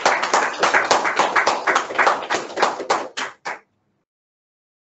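A small group clapping hands in applause, heard over a video call; the clapping stops abruptly about three and a half seconds in.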